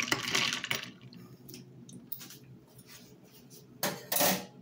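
A metal spoon stirring ice cubes in a mug of iced coffee and milk, the liquid sloshing and ice knocking for about the first second, then faint light ticks. Two short, louder noises come near the end.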